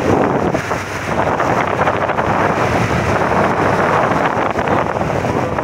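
Wind buffeting the microphone over an ATV engine running steadily as the ATV rides along.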